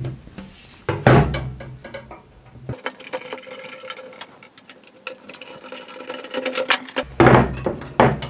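Screws being undone with a small screwdriver from the perforated cover of an old wirewound power resistor. The housing knocks and rattles on the bench as it is handled, about a second in and again near the end as the cover comes off. In between come quieter small clicks.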